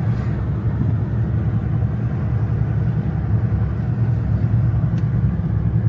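Steady low rumble of a car on the move, engine and road noise with no distinct events.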